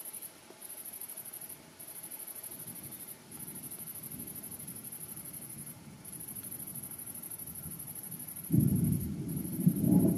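Thunder rumbling low, coming in suddenly and loud about eight and a half seconds in, after a fainter rumble from a few seconds in. Under it runs an insect's high, fast-pulsing chirring that breaks off briefly every second or two.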